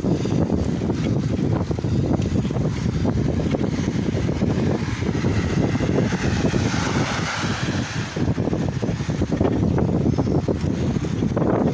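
Wind rumbling over the camera microphone of a moving bicycle. Around the middle a car passes the other way, its tyres hissing on the wet road.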